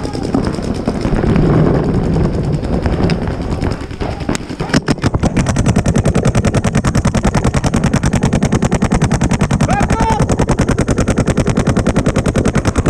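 Paintball marker firing: a few scattered shots at first, then from about five seconds in a long, even stream of rapid shots at about a dozen a second.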